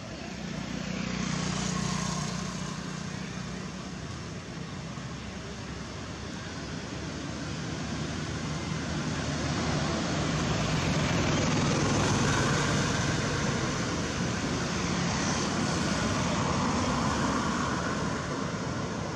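Steady rumble of motor vehicle engine noise. It swells louder about two seconds in and again around the middle, then eases off a little.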